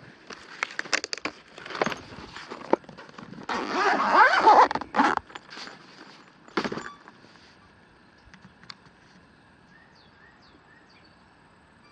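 Plastic cable ties (zip ties) ratcheting as they are pulled tight through a plastic tool case, with a long zipping burst about four seconds in, amid clicks and knocks of handling. A sharp knock comes at the end of the handling, and then it goes quiet.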